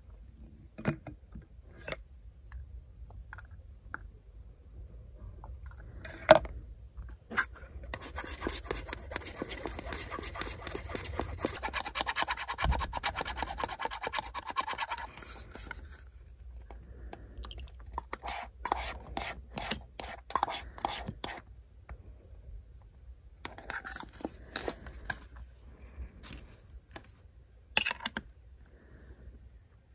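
Hand-work noises from mixing paint: a small metal spoon scraping and clinking in a paper cup of lacquer paint and thinner, with a long stretch of scratchy scraping in the first half and scattered taps and clicks. Near the end comes a sharp knock as a metal airbrush is set into its plastic stand.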